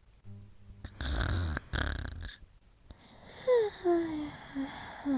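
Sleeping dog snoring: two long rasping breaths, then a run of short whimpers, each falling in pitch, as it dreams.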